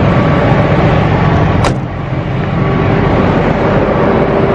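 Steady engine noise from trucks at a truck stop, with a sharp click about one and a half seconds in.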